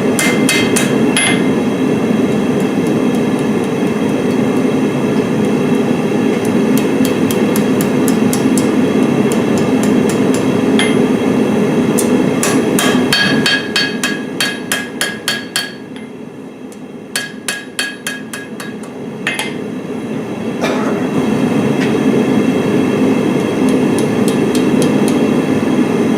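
Hammer forging a piece of hot file steel on an anvil: a run of rapid blows, about four a second, each with a bright metallic ring, over a steady low roar that drops away for a few seconds in the middle.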